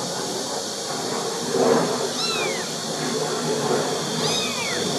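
A young kitten mewing: two short, high-pitched mews about two seconds apart, each falling in pitch. A brief louder noise comes just before the first.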